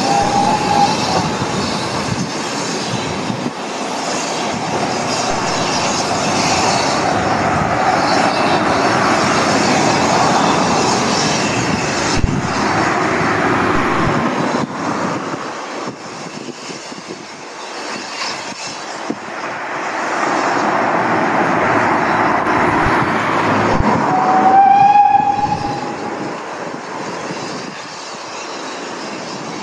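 A steam train's coaches rolling away over railway pointwork, with a continuous rumble of wheels on rail. A steam locomotive whistle sounds briefly just after the start, and again about 25 seconds in, louder and rising slightly in pitch.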